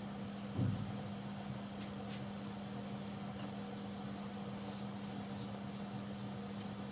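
Steady low electrical hum from the cooking setup, with one brief low thump about half a second in.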